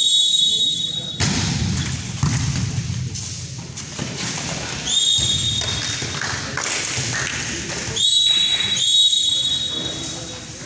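A volleyball referee's whistle is blown in four steady blasts of about a second each: one at the start, one about five seconds in, and two in quick succession near the end. Between the blasts there are voices and thuds in a large hall.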